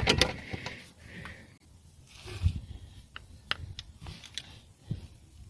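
Hand tools and engine parts being handled during timing belt work on a car engine: scattered light clicks and knocks, with one heavier knock about halfway through.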